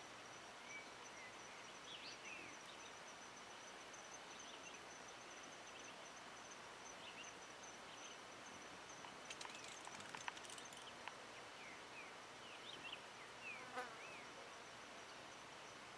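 Faint natural ambience: a steady high-pitched insect trill, with scattered short bird chirps. A cluster of sharp clicks comes a little past the middle and another short rattle near the end.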